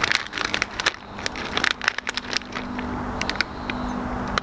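Plastic corn-chip bag crinkling and crackling as it is handled, in quick irregular rustles that thin out after about three seconds. A steady low hum runs underneath and grows a little stronger partway through.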